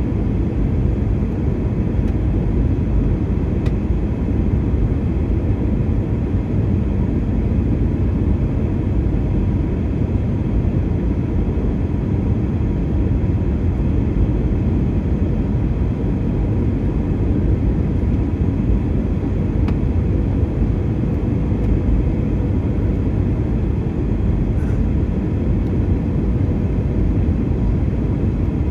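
Airliner cabin noise in flight: a steady low rumble of engines and airflow, with a faint steady hum running through it.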